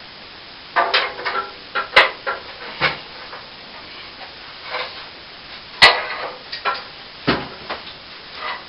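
Plastering tools working cornice cement: a run of short scrapes and rasps broken by sharp knocks, the two loudest about two seconds in and about six seconds in.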